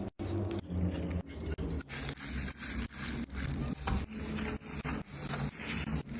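Rhythmic back-and-forth rubbing strokes, about two to three a second, with short breaks between them.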